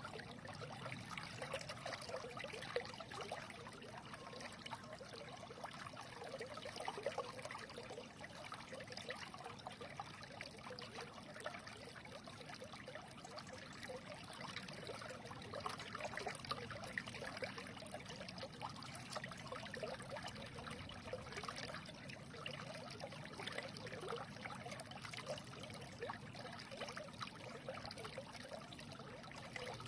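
Small stream babbling and trickling steadily over stones, a continuous rush of water with fine gurgles.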